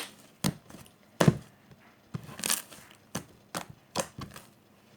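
Slime being squeezed and pulled in the hands, giving a string of sharp pops and clicks, about seven, irregularly spaced.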